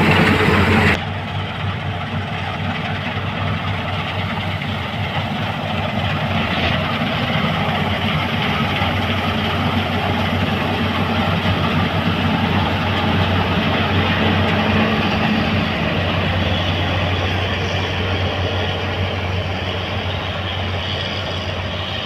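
New Holland TC5.30 combine harvester running steadily while harvesting wheat: a continuous engine and machinery drone that grows slightly fainter near the end as the machine moves off. A snatch of music cuts off abruptly about a second in.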